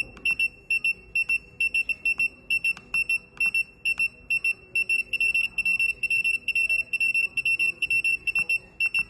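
P6 OBD/GPS car head-up display's beeper sounding a short, high-pitched beep with each button press as its menus are scrolled. The beeps come in quick, irregular runs of several a second, with faint button clicks among them.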